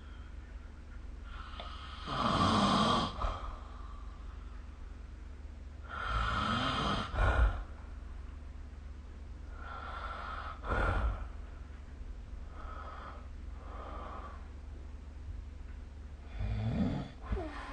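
A sleeping person snoring: rough, noisy snores recurring about every four seconds, one with a short sharp snort at its end. A faint steady low hum runs underneath.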